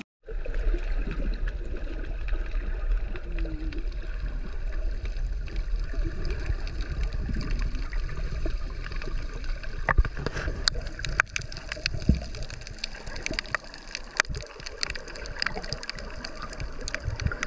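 Water sounds picked up by an action camera held underwater: a muffled, steady wash and gurgling with a low rumble. Scattered sharp clicks and pops come from about ten seconds in.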